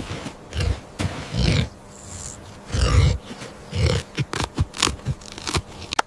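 Wild boar grunting: four low, heavy grunts about a second apart, with sharp clicks and snaps in between.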